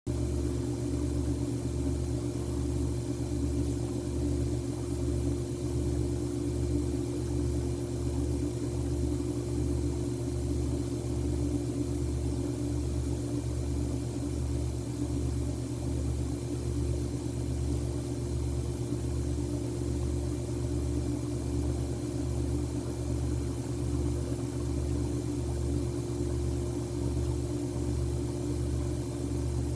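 Steady low mechanical hum with a slow, even throb and a constant mid tone above it, unchanging throughout.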